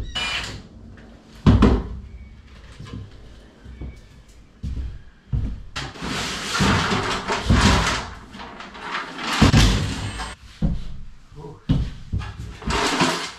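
Knocks, clunks and metallic rattling from light-fixture parts and fittings being handled and set down in a box inside a bare metal shelter, with a longer stretch of clatter about halfway through and again near the end.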